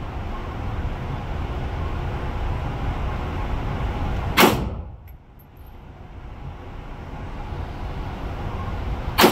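Two rifle shots on an indoor range, about five seconds apart, each a single sharp crack. Between them runs a steady low rumble that dips for about a second after each shot.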